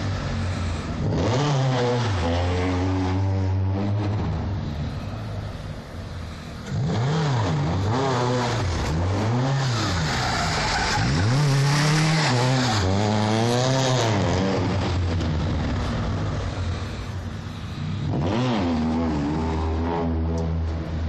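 Fiat 125p's Rover 1.4 engine revving up and down repeatedly as the car is driven hard, with tyres skidding in the middle of the run.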